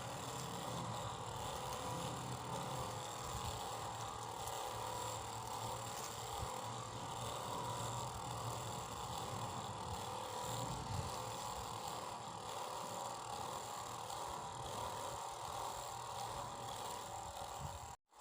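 Homemade plastic-bottle table fan with a small DC motor running steadily, then cutting off suddenly near the end.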